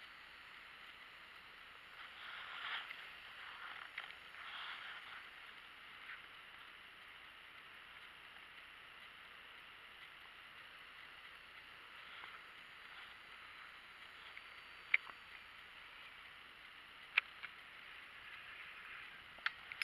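Faint steady outdoor background hiss, with a couple of soft swells in the first few seconds and three short sharp clicks in the last five seconds.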